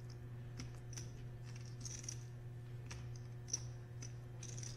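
Faint, scattered clicks of clay poker chips being handled and riffled at the table, with one sharper click past the middle, over a steady low hum.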